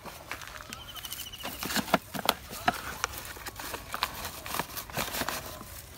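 Irregular knocks, clatter and rustling as potted mai (yellow apricot) seedlings are set down and shoved tightly together in a row, with the loudest knock about two seconds in.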